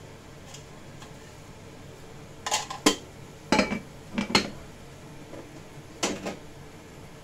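Kitchenware clattering: clinks and knocks of dishes, containers and utensils being handled and set down, in four short clusters from about two and a half to six seconds in, over a steady low hum.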